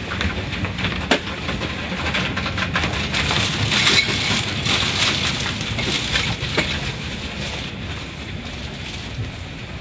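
Automatic car wash heard from inside the car: water spray and wash equipment drumming on the car's body, a steady rushing with many small knocks. It swells to its loudest about four seconds in, then eases off.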